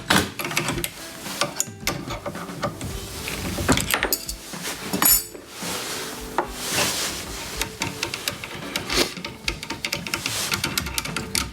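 Workshop handling noise: irregular clicks, knocks and scraping of tools and hardware being handled on the CNC table, with no machine running.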